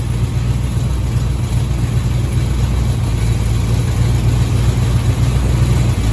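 1983 Chevy Silverado engine idling hot, with a rattle from the tailpipe touching the side of the transmission.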